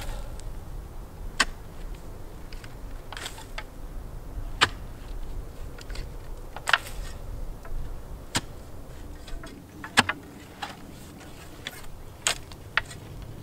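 Narrow steel spade chopping and scraping into shale and stony soil at the bottom of a post hole: sharp clinks about every second or two.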